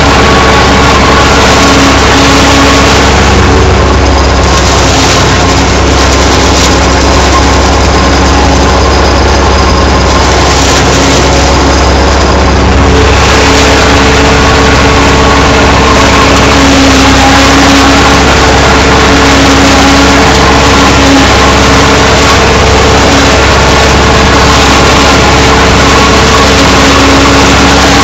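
PZ Zweegers 80 S forage harvester chopping standing maize while being pulled through the crop by its tractor in low gear: a loud, steady machine drone with several held tones, the tractor engine and the harvester's drive running together.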